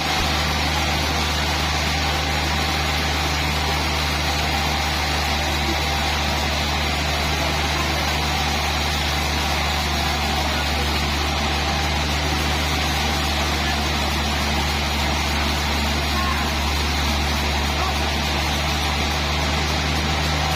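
Sawmill machinery running steadily with a low, constant hum and a hiss above it, with no change in load for the whole stretch.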